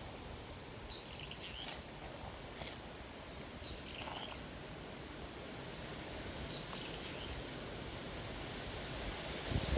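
Outdoor ambience: a steady background hiss with faint, short bird chirps every second or two, and a couple of low thumps near the end.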